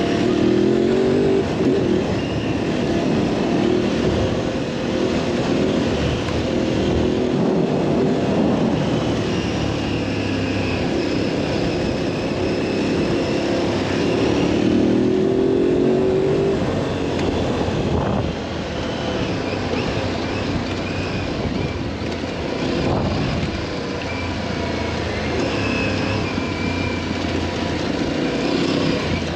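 Twin-cylinder adventure motorcycle engine running under way, revving up and easing off through the gears, with a clear rise in revs at the start and another about halfway through.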